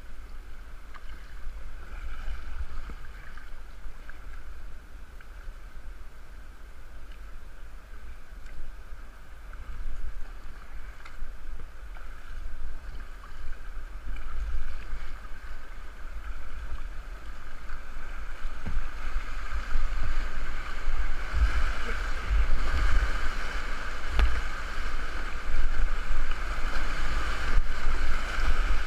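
Floodwater rushing and splashing around a kayak as it is paddled downriver, with wind buffeting the microphone. The rushing grows louder over the last third as the kayak runs into a rapid.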